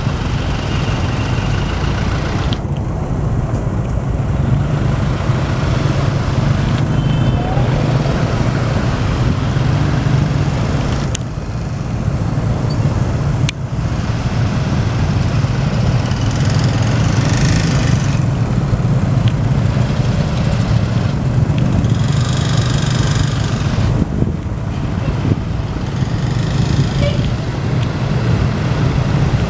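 Tour buses' diesel engines running as they pass through a sharp road bend. The sound changes abruptly a few times.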